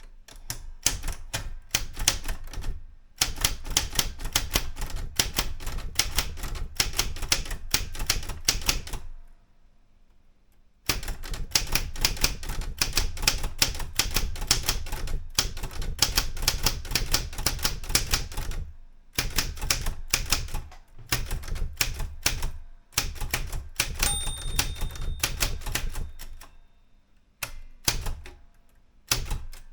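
Erika 105 manual portable typewriter typing in rapid runs of keystrokes, with short pauses between runs. About three-quarters through, its margin bell rings once.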